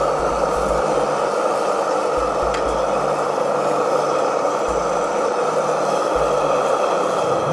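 Traeger pellet grill running with its lid open: a steady rushing noise from the fire and fan under the grate. A faint tick about two and a half seconds in comes as potato wedges are laid on the grate.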